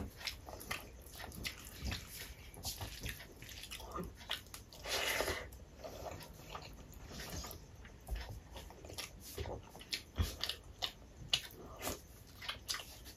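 Close-miked eating sounds: wet chewing and lip-smacking as mouthfuls of rice and curry are eaten by hand, in many short clicky ticks. A longer rush of noise comes about five seconds in.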